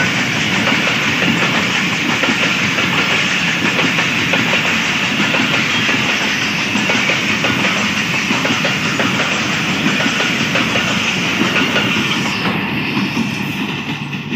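Pakistan Railways passenger coaches passing close by, their wheels clattering steadily over the rail joints with a heavy rolling rumble. The sound fades in the last two seconds as the final coach goes away.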